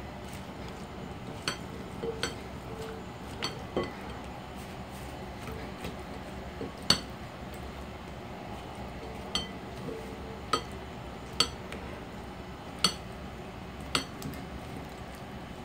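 Spatula tossing cut cucumber and carrot in a glass mixing bowl: about a dozen irregular sharp clinks and taps against the glass, the loudest about seven seconds in.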